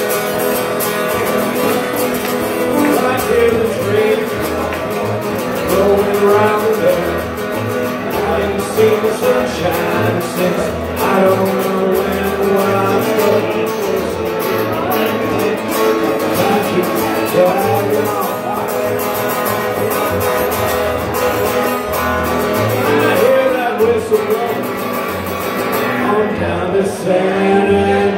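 A man singing a country song while accompanying himself on an acoustic guitar, with a steady rhythm of bass notes under the chords.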